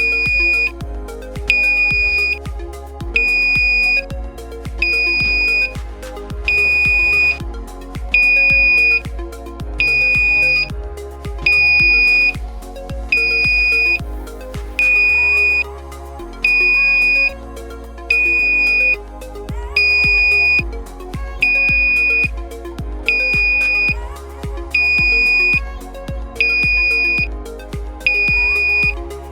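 Buzzer of an LTE-5061 220 V AC flashing warning light sounding: a high-pitched electronic beep about half a second long, repeating roughly every one and a half seconds, over background music.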